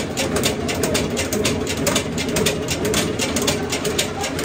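Automatic screw-capping machine on an oil-bottling line running: a steady machine hum under rapid, irregular clicks and clacks as bottles move along the conveyor through the capping heads.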